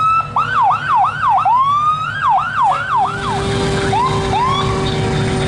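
Fire engine siren sounding a quick run of rising-and-falling whoops for about three seconds, then two short rising whoops, over the low rumble of passing fire trucks.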